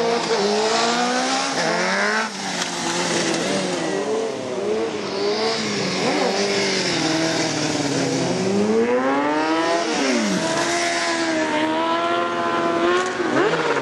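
Sport motorcycle engine revving up and down as the rider holds a wheelie, its pitch rising and falling throughout. About ten seconds in the revs drop sharply and climb back, and they climb quickly again near the end.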